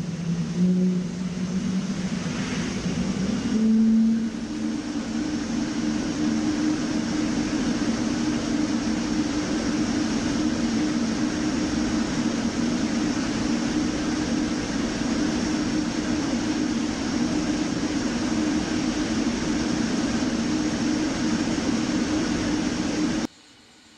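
Jet engine running: a steady rushing noise with a humming whine on top, which steps up slightly in pitch about four seconds in and then holds. It cuts off suddenly near the end, leaving only a faint hiss.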